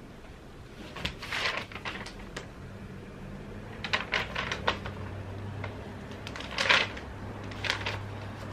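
Paper instruction sheet rustling and crinkling in several short bursts as it is picked up, unfolded and handled, with some cloth rustling from the sofa cover fabric.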